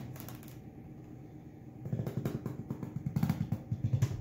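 Utility knife blade drawn through a ribbed PVC sheet against the grain. Starting about two seconds in, it makes a rapid run of clicks and rasps as the blade crosses the ribs.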